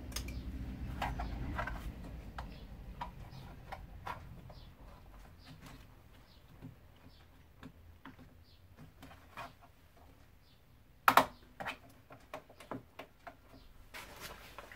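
Irregular light clicks and taps of hands handling plastic and metal parts inside a stripped car door, with a sharp double knock about eleven seconds in.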